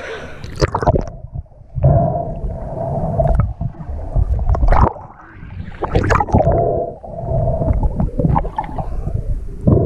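Muffled underwater sound from a submerged action camera as a snorkeler swims: water sloshing and gurgling around the housing with low rumbles and knocks, and a steady hum that comes and goes.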